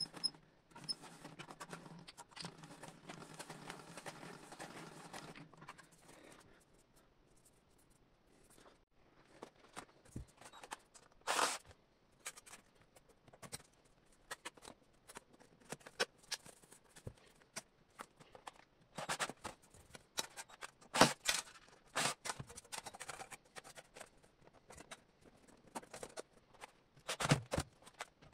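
A sheet-metal roller machine running steadily for about the first six seconds as a galvanized steel cylinder is turned through its rollers. Then a run of irregular sharp clicks and metallic knocks from galvanized sheet-metal pieces being handled and fastened by hand, a few of them much louder.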